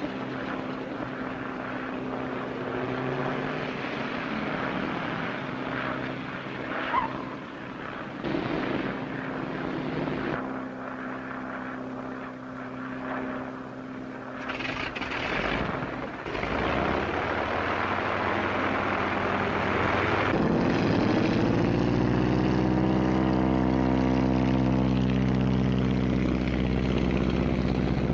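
Single-engine propeller plane's engine running steadily. About twenty seconds in it revs up, the pitch rising, and it holds there louder.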